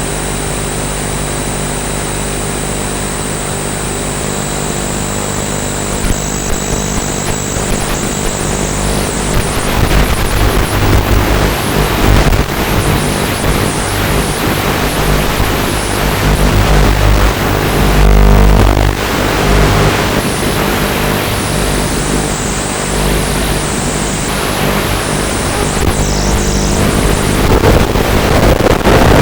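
Walkera F210 racing quadcopter's motors and propellers whining, steady for the first few seconds, then rising and falling in pitch with throttle amid loud rushing noise.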